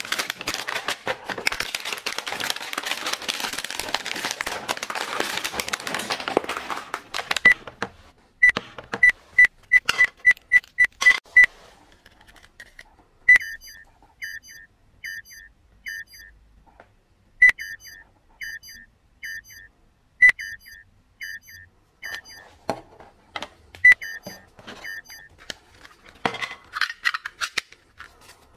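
Plastic rustling and crinkling, then a run of quick clicks, then a battery-powered toy gun's electronic sound chip giving short repeated beeping bursts, several times over.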